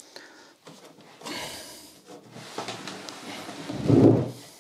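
Handling noise from a heavy plastic-cased portable power station being turned around on a wooden workbench: a soft scrape and a few light clicks, then a louder low rumbling scrape of the case on the bench about four seconds in.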